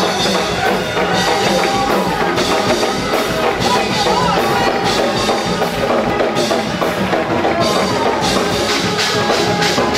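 Live gospel praise music with a drum kit keeping a steady beat under the other instruments.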